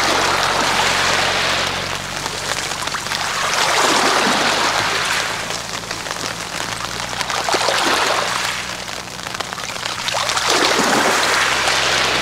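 Small waves washing up a pebble beach and draining back through the shingle: a hiss that swells and fades about every four seconds.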